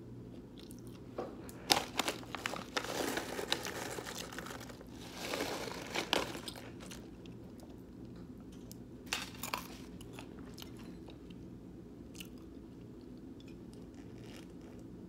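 Close-up chewing and biting of a sandwich, with sharp crunchy clicks and short crunches in the first six seconds and again around nine seconds, then quieter chewing over a steady low hum.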